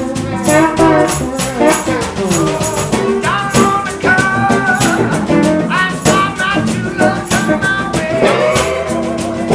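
Small band playing a blues-rock tune on electric guitars, with a guitar lead whose notes slide up in pitch, over a steady shaker rhythm.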